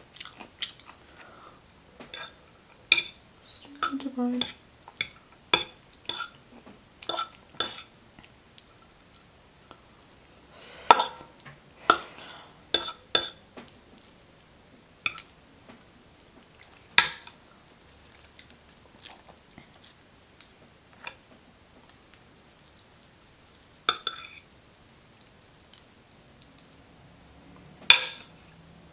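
Metal cutlery clinking against a ceramic dinner plate during a meal: scattered sharp clinks, some with a brief ring. They come close together in the first half and only every few seconds later.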